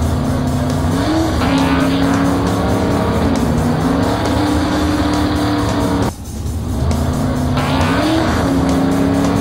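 Race car engine sound effect revving up and holding at high revs. It dips sharply about six seconds in, then revs up again.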